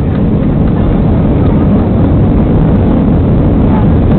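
Loud, steady roar in the cabin of an Airbus A320 rolling down the runway after touchdown, its engines in reverse thrust, slowly swelling.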